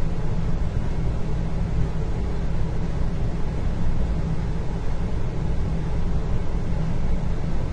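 Indoor ambience: a steady low rumble with a fainter even hiss, unchanging, with no distinct events.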